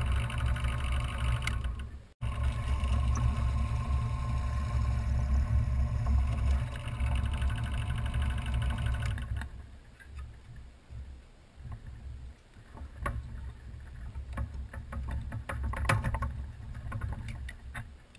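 Benchtop drill press motor running with the bit free, a steady hum that stops about halfway through. Then scattered light clicks and knocks from handling the wooden wand handle.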